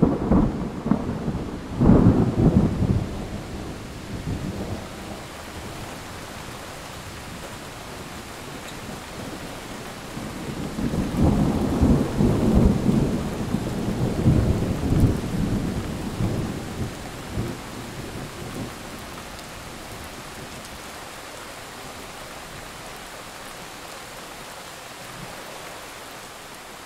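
Thunderstorm soundtrack: steady rain hiss with rolling thunder, one rumble about two seconds in and a longer rolling one from about eleven to sixteen seconds, then rain alone.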